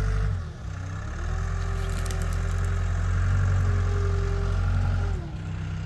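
Diesel engine of a CAT 252B skid steer running steadily, with a brief drop in level about half a second in and again near the end.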